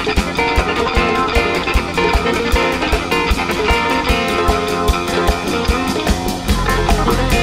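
Live rock band playing: electric guitar lines over a drum kit keeping a steady cymbal beat, with bass and keyboards. A deep sustained bass note comes in near the end.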